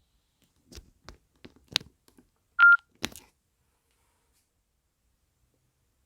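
Nokia N73 mobile phone keys being pressed: a few soft clicks, then a short single-pitch key beep from the phone's speaker about two and a half seconds in, followed by one more sharp click.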